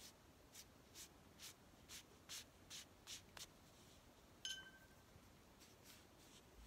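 Chinese paintbrush stroked quickly across paper: a run of about nine soft, short swishes over the first three and a half seconds, then a single light clink with a brief ring about four and a half seconds in, and a few fainter strokes near the end.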